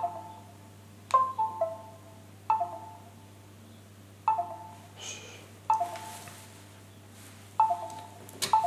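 Windows 10 USB device chime on a GPD Pocket, sounding over and over as an 8 GB Lexar flash drive keeps connecting and dropping out. Each chime is a short falling run of two or three notes, about six in all, every one and a half to two seconds. The drive only half works in the Pocket's USB 3 port.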